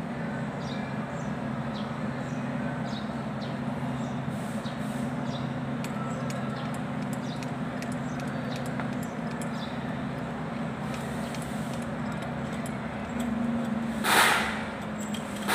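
Steady low drone of a running engine in the background, with faint light metallic clicks as bolts are fitted by hand into a Kubota L2201 front-axle bearing housing. A short loud hiss near the end.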